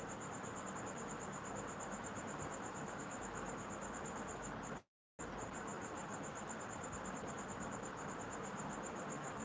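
A cricket chirping in a fast, even, high-pitched pulsing trill over a low hiss. The sound cuts out completely for a moment about halfway through.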